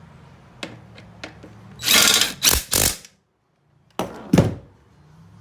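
Seat-bracket bolt being tightened with a power tool: a few light clicks, then several short, loud bursts, a brief gap, and two more bursts.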